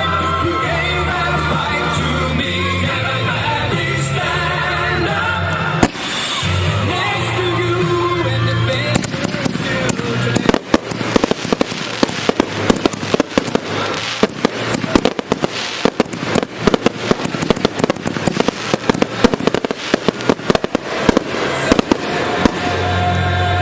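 Fireworks going off over music. There is one sharp bang about six seconds in, then from about ten seconds a rapid barrage of firework reports and crackle for about twelve seconds. The music carries on alone again near the end.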